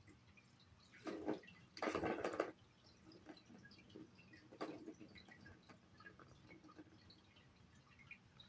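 Plastic ball rolling in the circular track of a Turbo Scratcher-style cat toy as a cat bats it: two short rolling rattles a little after the start, then a brief one about halfway, with faint scattered ticks between.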